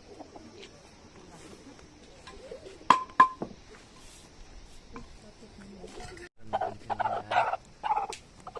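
Two sharp, ringing clinks of metal cookware or utensils knocked together, about three seconds in. Near the end comes a louder stretch of short, pitched calls.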